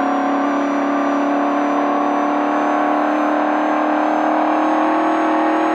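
Desert race truck's engine running steadily under load, its pitch creeping slowly upward.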